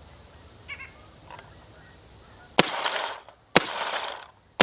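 Empire paintball marker firing two shots about a second apart, with a third starting right at the end. Each is a sharp crack followed by about half a second of hiss. The shots read about 103 dB on a decibel meter. Faint bird chirps come before the shots.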